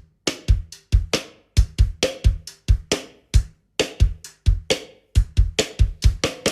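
Drum kit played alone: a fast run of kick drum, snare and tom strikes, about four a second, leading into a song.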